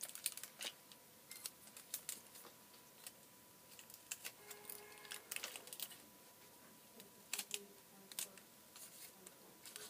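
Faint, scattered clicks and rustles of cardboard and tape being handled and pressed down by hand.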